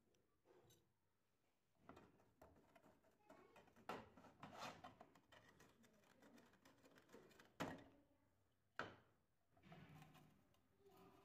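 Faint metal handling sounds: a screwdriver prying and scraping at the toothed brass dome on a rusted bed-warmer lid, and loose metal parts clinking. There are a few sharp clicks, the loudest a little past halfway.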